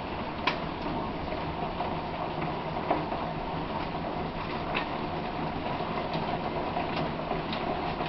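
Steady hiss of rain during a thunderstorm, with a few scattered sharp ticks.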